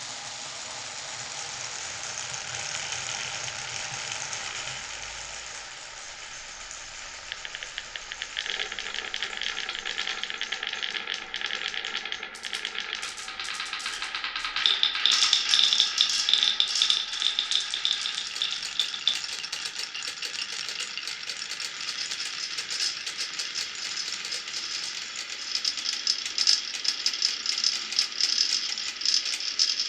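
Marbles rolling and clattering through a wooden and plastic marble run: a steady rolling hiss at first, then from about seven seconds in dense rattling clicks that grow louder around halfway.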